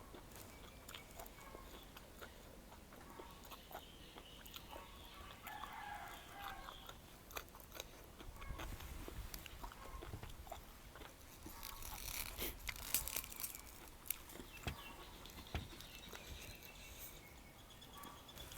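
Close-up eating sounds: chewing and crunching mouth noises with scattered small clicks and taps, busiest midway through.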